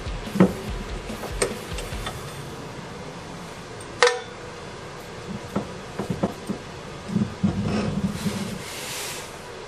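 Metal clinks and knocks as a differential carrier with its ring gear is worked loose and pulled from the axle housing. One sharp ringing clank comes about four seconds in, and a scraping rub of metal on metal follows near the end as the carrier comes out.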